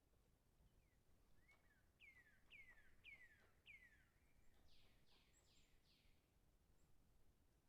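A bird singing faintly: four clear whistled notes that each slide downward, about half a second apart, followed by four buzzier, higher notes.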